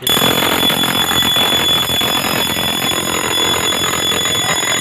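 Fire alarm bell of an FDAS system ringing loudly and continuously, cutting in suddenly at the start: the panel has gone into alarm once its 5-second delay ran out during a zone test.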